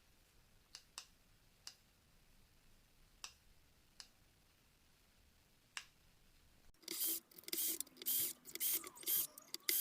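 A few faint, scattered clicks, then about seven seconds in, loud rhythmic music starts with a hissy beat.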